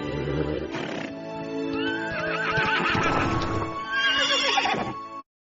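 Horse whinnying twice, a long wavering neigh followed by a shorter one, over background music with some hoofbeats; the sound cuts off suddenly near the end.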